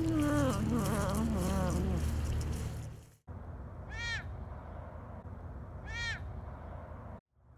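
Wild cat vocalizations. A wavering, pitched call fades out about two seconds in. After a break, a different cat gives two short, high chirps about two seconds apart.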